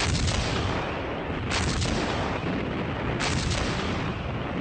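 Battle gunfire: three bursts of rapid shots about a second and a half apart over a continuous rumble of firing.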